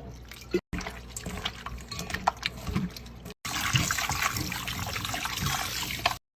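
Water running from a kitchen tap into a sink, with small splashes and clinks. It cuts off abruptly twice and again just before the end.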